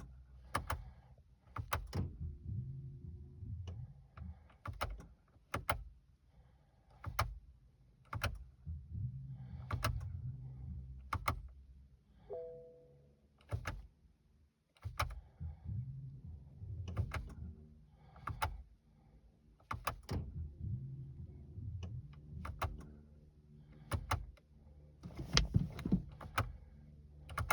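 Repeated sharp clicks and knocks from the cabin controls of a BMW 118d being tried again and again with the clutch pressed, over a low intermittent rumble. The engine does not start. A short two-tone chime sounds about twelve seconds in.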